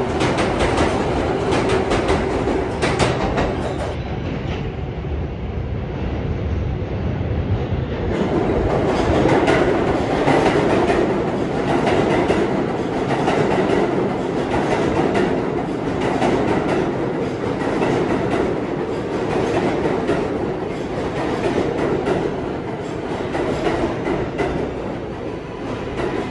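R188 subway train of the 7 line running past the platform: a steady rumble of steel wheels on rail, dense with clicks as the wheels cross rail joints. A high whine comes in near the end.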